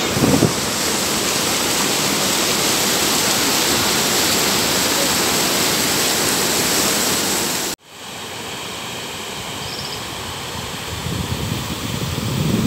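River water rushing loudly over a low concrete weir and rocky rapids, a steady roar of white water. About eight seconds in it cuts off abruptly to a quieter flow, with wind buffeting the microphone near the end.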